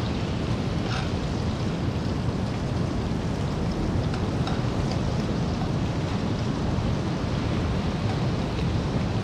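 Small smelt fish frying in a pan, a steady sizzle, over a low rumble of surf and wind, with a few faint clicks of the turning utensil against the pan.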